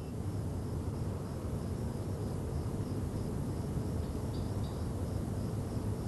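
Quiet night ambience: crickets chirping faintly and regularly over a low, steady background hum.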